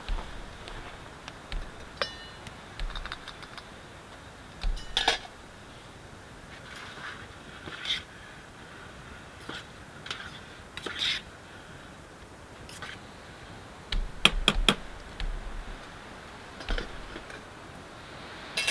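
Scattered metallic clinks, taps and knocks of a cooking pot and utensils being handled on a small tent wood stove. One clink rings briefly about two seconds in, and a quick run of sharp clicks comes about fourteen seconds in.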